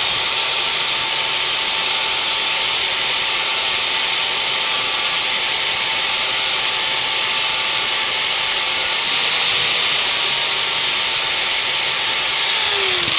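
Angle grinder grinding the steel edge of a rotary lawnmower blade, a steady harsh grinding hiss over the thin whine of the disc spinning, bringing the whole edge down to remove a nick. Near the end the whine stops and the grinder winds down.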